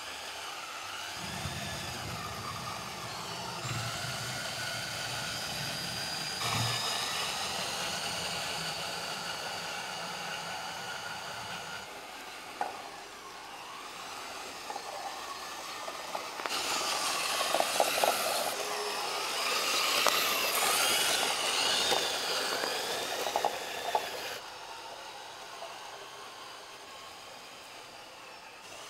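Electric drive of a 1/16-scale radio-controlled John Deere 9620RX tracked tractor whining as it drives, its pitch rising and falling with speed. There is a low rumble in the first half, and a few short clicks and rattles later on as it moves through loose soil.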